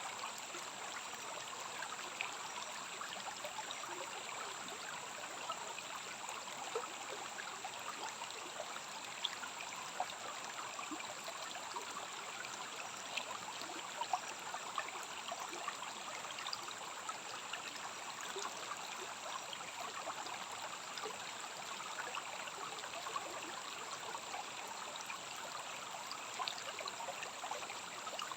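Rainforest stream running steadily, a constant babble of water with small splashes, over a steady high-pitched whine.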